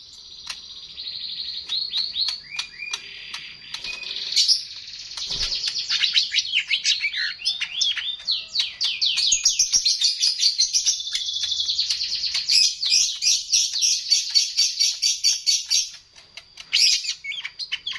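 Small songbird singing a long, fast, high-pitched chirping song of rapidly repeated notes and short downward slurs, breaking off briefly near the end before a few more chirps.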